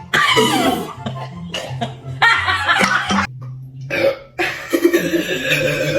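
A person burping repeatedly after gulping Sprite, over background music with steady low held notes.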